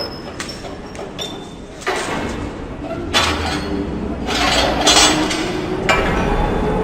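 Factory ambience: a steady low machinery rumble with metallic clinks and ringing near the start, then repeated hissing bursts like steam venting, the first about two seconds in.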